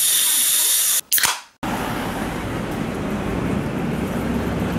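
Steady, high hiss of dental equipment working in a patient's mouth, cutting off about a second in. After a brief swish, the even hubbub of a busy pedestrian street follows.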